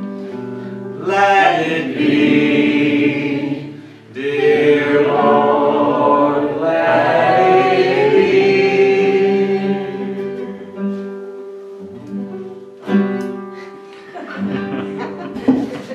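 Acoustic guitar accompanying loud, drawn-out singing without clear words. The singing stops about ten seconds in, leaving quieter guitar picking.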